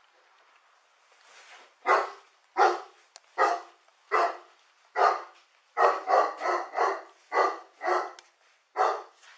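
A dog barking repeatedly, about a dozen sharp barks beginning about two seconds in, coming faster in a quick run in the middle.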